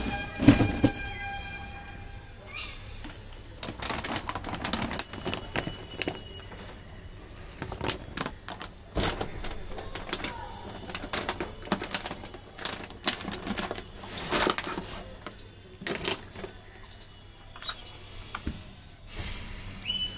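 Beagle puppy eating dry kibble from a stainless steel bowl: irregular crunching, with clicks of kibble and teeth against the metal. There is a louder thump about half a second in.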